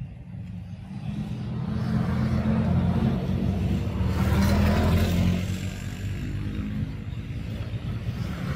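A motor vehicle passing: a low engine hum that grows louder, is loudest about four to five seconds in, then fades.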